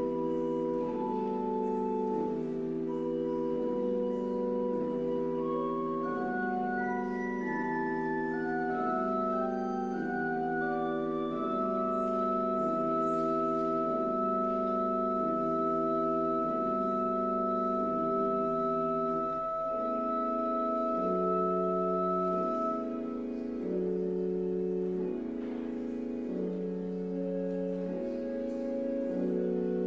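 Church organ playing: a low accompaniment figure rocks between two chords about once a second while short higher notes climb step by step, then give way to long held high notes. The accompaniment moves to a new chord pattern about two-thirds of the way through.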